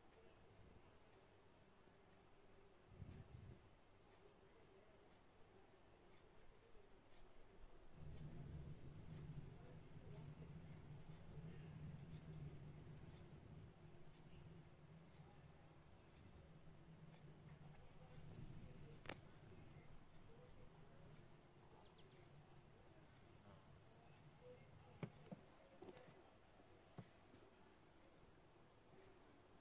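Faint cricket chirping: rapid, evenly spaced high chirps that keep on steadily over a thin high hiss. A soft low rumble of handling comes through the middle, with a few faint clicks.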